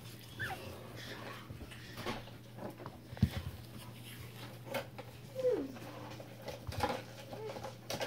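Pomeranian-Yorkie mix puppies whimpering: a short high squeak falling in pitch near the start and a lower falling whine about halfway, with small scuffles and soft knocks as they shift about. A steady low hum runs underneath.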